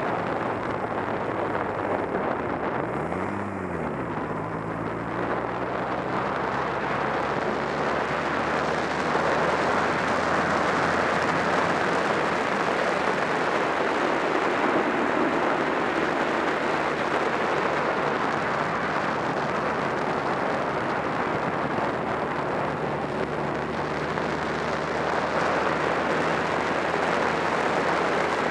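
Honda Rebel 250's parallel-twin engine running at a steady cruise under heavy wind rush over the microphone. About three seconds in, the engine pitch briefly rises and falls.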